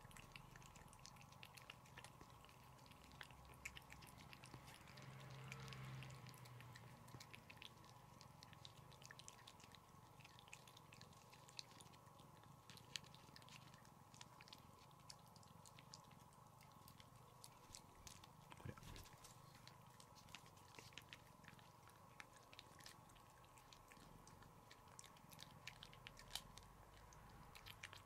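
Faint, quick wet clicks of a cat licking a lickable paste treat from a squeeze tube, repeated steadily, over a low steady hum.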